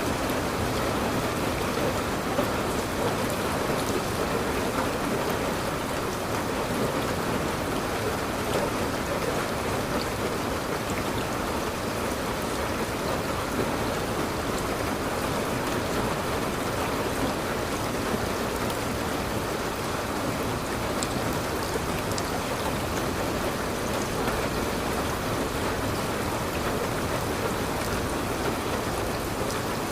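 Steady rain falling, a continuous even patter of drops on a surface.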